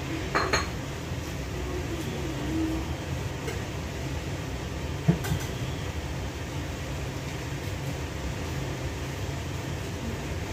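Steady low hum of a kitchen range hood fan running over the stove, with a short metallic clink just after the start and a single sharp knock about five seconds in.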